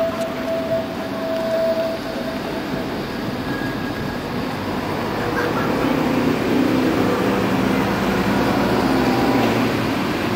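Bombardier Incentro tram approaching, its running noise and motor hum growing louder over the second half, with a whine that rises in pitch near the end. A steady high tone fades out about two seconds in.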